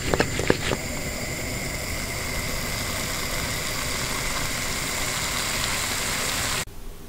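Sautéed parsnip, zucchini and black olives sizzling steadily in a frying pan, after a few sharp clicks and knocks in the first second as the vegetables are tossed. The sizzle cuts off suddenly near the end.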